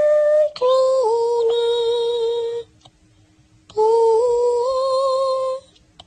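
Wordless high voice singing long held notes with a slight waver: a short note, then one held for about two seconds, then after a pause of about a second a third that steps up slightly partway through.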